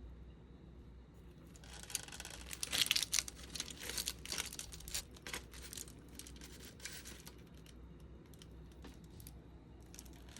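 Crinkling and rustling of something being handled, a dense run of crackles from about two seconds in, loudest about a second later, then thinning out after about seven seconds into a few scattered ticks.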